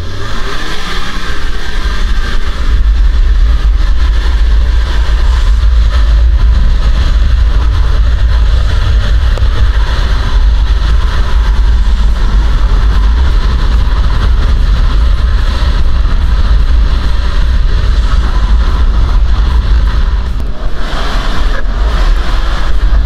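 Turbocharged engine of a Super Villain 2000 Turbo UTV (235 hp) running hard on sand, heard on board: a loud, steady deep rumble with a noisy spread of higher sound over it, the engine note rising as it accelerates in the first second.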